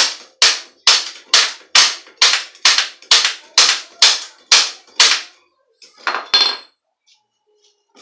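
A dozen sharp hammer blows on the steel head tube and fork of a bicycle, about two a second, stopping about five seconds in. Then a brief metallic clink with a short ring.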